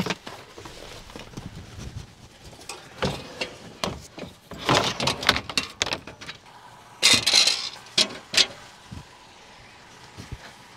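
A string of knocks, rattles and scrapes from a car door and a metal patio chair being grabbed and set down on asphalt, with louder clatters about three, five, seven and eight seconds in.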